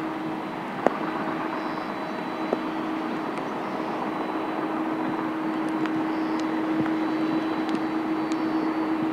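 Jet airliner engines running: a steady rushing drone with a held hum in it, slowly growing louder.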